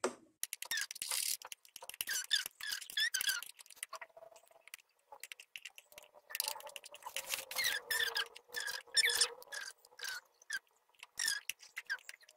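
Metal spoon stirring a flour-and-water batter in a ceramic bowl, scraping and squeaking against the bowl in quick repeated strokes.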